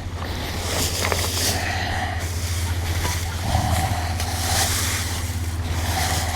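Steady rushing noise, like wind on the microphone, with three short calls from farm birds or animals.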